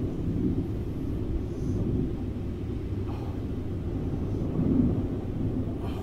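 Steady low rumble with no clear pitch, rising and falling a little in loudness.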